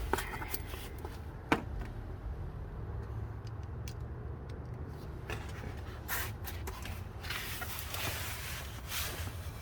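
Scattered clicks and short scrapes of hand tools on metal while brake bolts are screwed back in, over a low steady hum.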